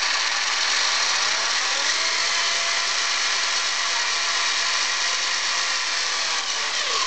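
HPI Savage XS Flux RC monster truck's brushless motor and drivetrain running at full throttle on a stand with the wheels spinning free: a loud high whine that climbs in pitch over the first couple of seconds, holds steady, then falls away as the throttle is let off near the end.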